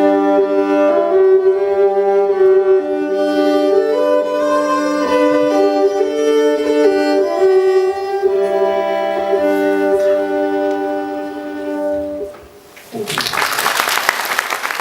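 Instrumental ending of a live folk song: a slow melody over a held low drone note, stopping about twelve seconds in. Audience applause breaks out about a second later.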